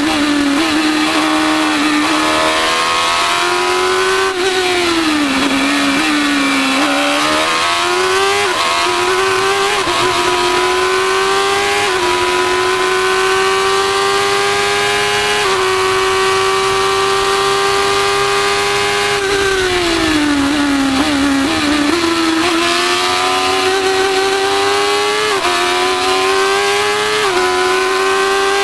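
Formula 1000 race car's 1000 cc motorcycle engine at racing revs, heard from the cockpit: it climbs through the gears with quick upshifts, holds high on a straight, and twice falls away in long downward sweeps under braking and downshifting before pulling up again.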